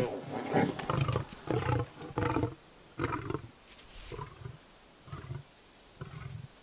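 Lion roaring in a run of short grunting bursts, about ten in all, loudest at first and growing quieter and further apart.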